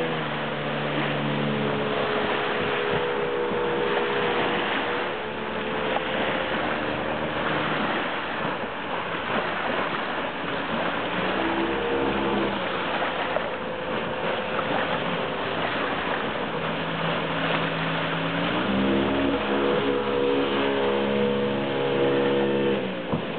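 Mercury 40 outboard motor driving a small plywood boat, its engine note shifting in pitch several times and now and then sinking under a loud, steady rush of water and wind.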